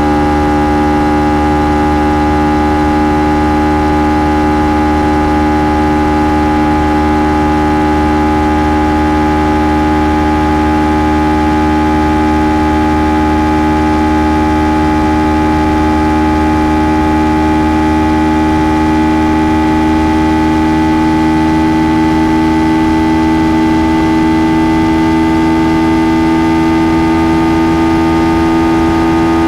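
Kawasaki Ninja 300 parallel-twin engine through its stock exhaust, held at a steady high note while riding, its pitch climbing slowly throughout.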